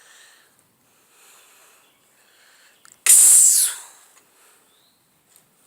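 A sudden loud hissing burst about three seconds in, lasting under a second and then fading, after a few faint breathy rustles.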